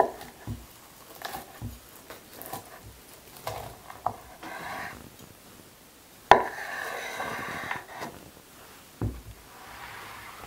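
Chef's knife cutting through a walnut-topped brownie on a wooden cutting board: a run of knocks as the blade meets the board, with short scraping stretches. The loudest knock comes about six seconds in, followed by a longer scrape of the blade.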